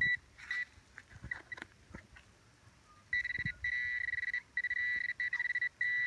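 Handheld metal-detecting pinpointer probing the soil of a dug hole. It gives a couple of short high beeps, then from about three seconds in a near-continuous high tone with brief breaks, signalling a metal target right at the probe tip. Faint scrapes of the probe in the dirt come through between the beeps.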